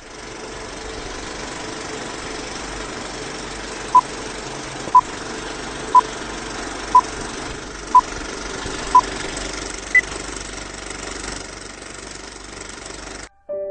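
Old-film countdown leader sound effect: a steady film-projector whir with short beeps once a second, six at one pitch and then a seventh higher one. The whole sound cuts off suddenly near the end.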